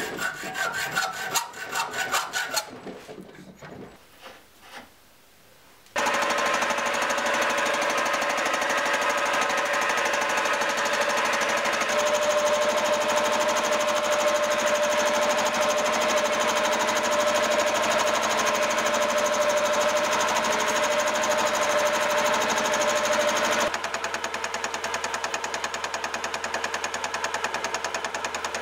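A hacksaw cutting a block of aluminium with rhythmic strokes, fading out within the first few seconds. Then a mini vertical mill runs a fly cutter across the face of the aluminium block: a steady machining noise with a constant whine, a little quieter for the last five seconds.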